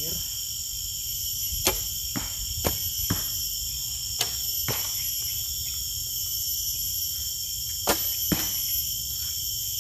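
Horsebow shots: four pairs of sharp snaps, each a bowstring release followed about half a second later by the arrow striking the target. Under them runs a steady high insect drone.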